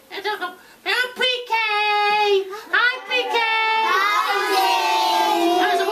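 High-pitched voice singing a run of drawn-out, wavering notes with no recognisable words. The last note is long and slides slowly down.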